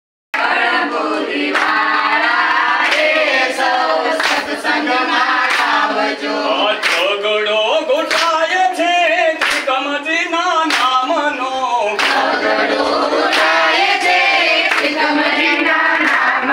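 A seated group sings a devotional song (bhajan) together, clapping hands in time. Sharp claps land every half second to second over the singing.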